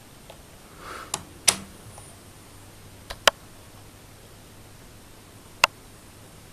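Sharp clicks of a V&A VA18B digital multimeter being handled and its buttons pressed: a short rustle about a second in, then about five clicks spaced unevenly, two close together near one and a half seconds, two around three seconds and one near the end.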